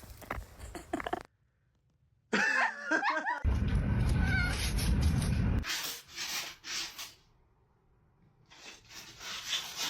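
Cat meowing: a wavering, pitch-bending call about two and a half seconds in, followed by a couple of seconds of loud rough noise.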